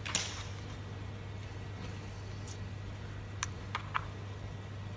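Fingers pressing and squishing thick white slime topped with a crunchy granular layer: a soft squish right at the start, then a few sharp crackles and pops about three and a half to four seconds in, over a steady low hum.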